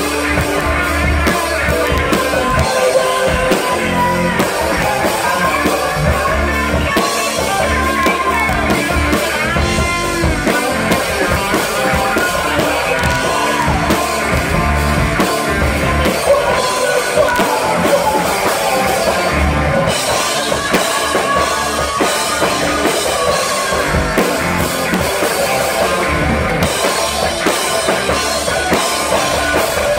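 Rock band playing live and loud: drum kit, electric guitar and keyboards, with a lead singer.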